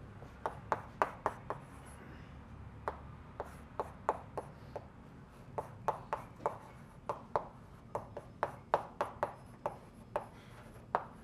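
Chalk on a blackboard as an equation is written: a run of sharp taps and short scrapes, several a second, with a brief pause about two seconds in.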